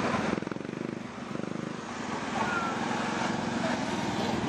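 Road traffic: a large truck passes close by, giving a steady low engine drone with rapid firing pulses.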